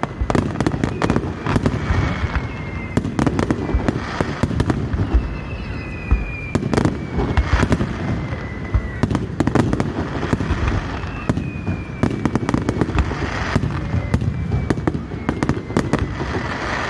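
Fireworks display: a dense, continuous run of shell bursts, booms and crackles over a steady low rumble, with several high whistling tones sliding down in pitch.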